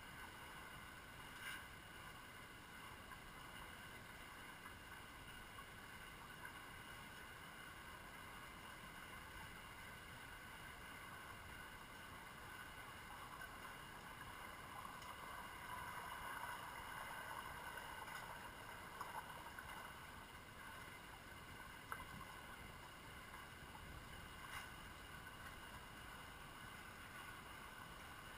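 Faint underwater pool ambience picked up by a camera under water: a steady hiss with a few steady faint tones, a slight swell about halfway through, and a few soft clicks.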